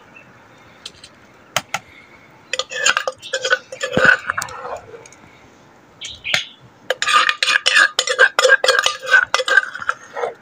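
Metal spoon clinking and scraping against a container in quick clusters of taps, scooping food out: a few single clicks at first, then two longer runs of rapid clinks.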